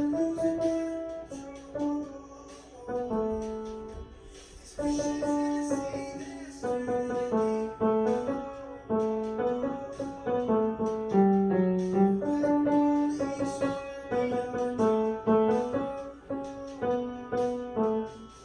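Piano playing an instrumental melody over chords, in phrases; it goes quieter for a few seconds early on and then picks up again.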